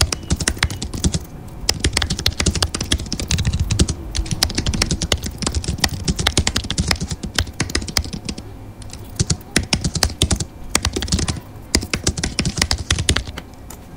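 Typing on a computer keyboard, fast runs of key clicks broken by short pauses.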